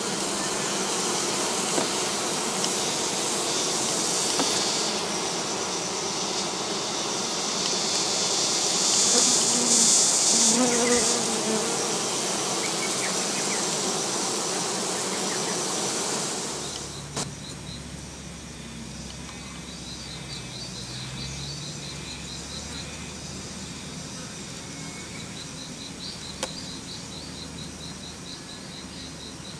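Japanese honeybees buzzing in a mass at the hive entrance: a dense, steady hum that grows louder about eight to eleven seconds in, with a single bee's wavering drone passing close. About seventeen seconds in the buzzing drops away abruptly, leaving a quieter background with runs of a fast, high insect chirping trill lasting a few seconds each.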